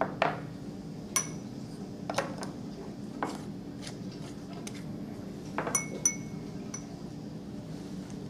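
Metal spatula clinking against a glass jar and a glass beaker while scooping and tapping out calcium oxide powder: about ten sharp, irregular clinks, some with a short glassy ring, over a steady low hum.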